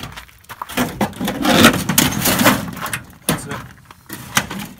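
Thin aluminum RV siding sheet being pulled and flexed off the wooden wall framing: crinkling, scraping sheet metal, then a couple of sharp knocks near the end.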